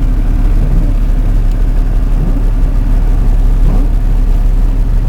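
Steady low hum of a car's engine and road noise, heard from inside the moving car while driving through a snowstorm.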